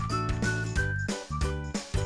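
Background music: a light, bouncy tune with a plucked melody over a steady bass line, about three notes a second.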